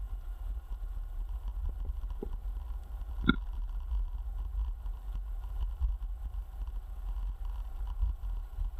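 Low rumble of wind and road vibration on the microphone of a dual-motor electric scooter riding along, with a faint steady whine over it. A short, high chirp about three seconds in.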